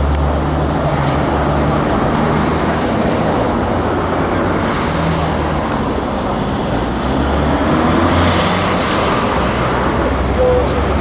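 Steady city street traffic noise: cars and other motor vehicles driving past with a low engine rumble, growing a little louder about eight seconds in.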